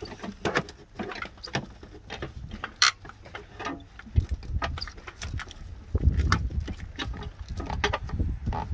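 Scattered clicks, knocks and rustling of gloved hands working among wiring and plastic engine covers in a car's engine bay. A low rumble joins about six seconds in.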